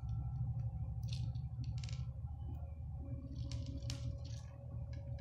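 Beads and nylon fishing line being handled while threading: a few soft clicks and rustles about a second in and again past the middle, over a steady low hum.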